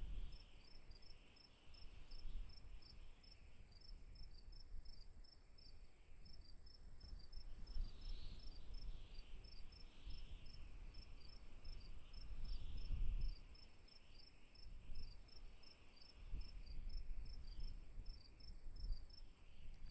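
Crickets chirping in an even rhythm of a few chirps a second, over a continuous high-pitched insect trill. A low rumble swells and fades underneath.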